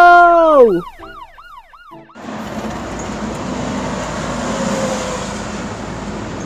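A shouted 'Let's go!' that trails off in a cartoon echo effect, the word repeating and fading. About two seconds in, a steady rushing noise of street ambience starts, with a faint passing tone around the middle, and fades near the end.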